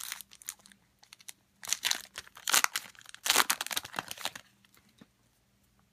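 Foil wrapper of a football trading-card pack being torn open and crinkled in the hands. The rustling comes in several short spells and stops about four and a half seconds in.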